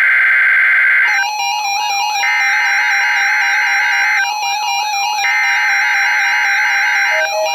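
NOAA Weather Radio SAME header bursts: buzzy, warbling digital data tones sent three times to open a Required Weekly Test and set off alert receivers. The first burst ends about a second in, then two more follow, each about two seconds long with about a second between them.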